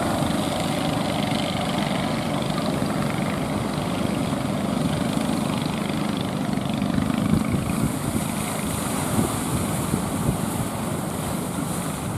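A boat's motor running steadily amid wind and surf, with a rising hiss of breaking waves in the second half.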